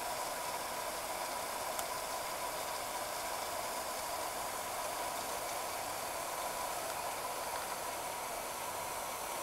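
Steady hiss from a Brasslite Turbo II-D alcohol stove burning the last of its methanol under a titanium pot of water at the boil, with a faint steady tone throughout.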